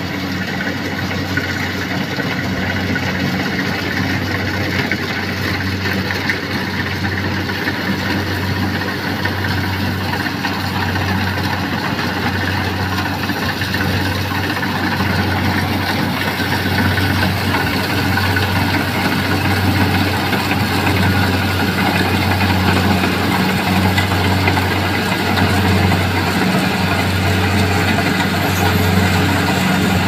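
Tracked rice combine harvester's engine running steadily as the machine cuts rice, with a low, pulsing drone. It grows louder in the second half as the harvester comes closer.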